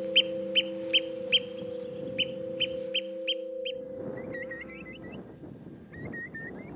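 Eurasian oystercatcher giving loud, sharp piping calls, about two to three a second, growing weaker after about a second and a half and stopping near four seconds in. After that comes wind noise and a Eurasian curlew's bubbling call, a quick run of short rising notes, heard twice.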